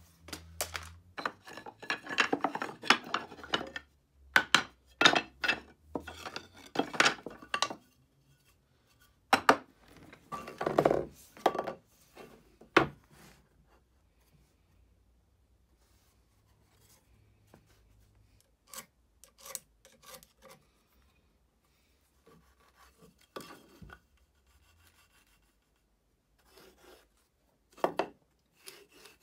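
Hand tool scraping wood in irregular bursts of short strokes, dense at first, then sparser and fainter with long pauses.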